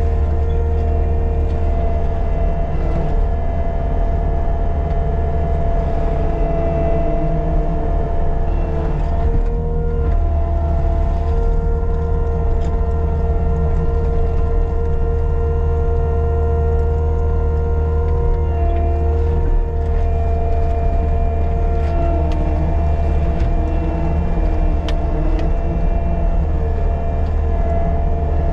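Caterpillar 299D2 compact track loader's diesel engine running steadily at working speed, a constant heavy drone with whining tones above it that shift slightly as the machine works.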